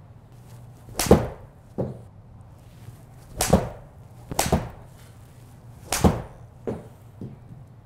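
Golf shots with a TaylorMade P790 iron on a ladies-flex graphite shaft: a series of sharp cracks of clubhead on ball, with the loudest three about two and a half seconds apart and softer knocks between them.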